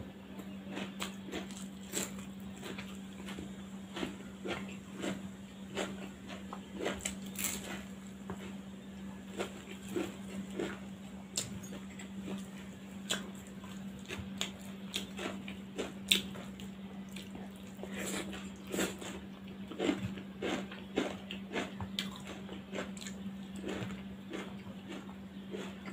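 A person eating rice by hand: close chewing and wet mouth clicks, with fingers working the rice on a steel plate. A steady low hum runs underneath.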